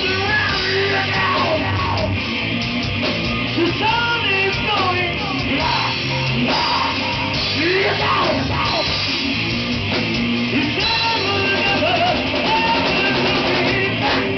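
Live rock band playing loud with distorted electric guitars and a drum kit, a male vocalist singing over them into a microphone.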